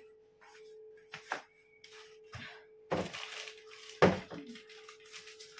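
A few sharp knocks with crackling after them: one about a second in, then two louder ones near three and four seconds in, over a steady faint hum.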